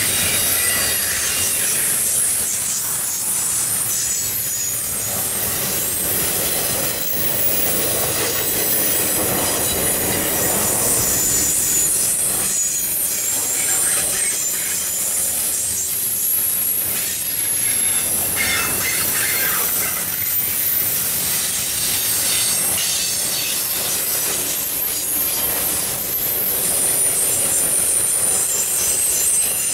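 Double-stack intermodal well cars rolling past, their steel wheels running on the rail with a steady rumble and a shifting high-pitched wheel squeal.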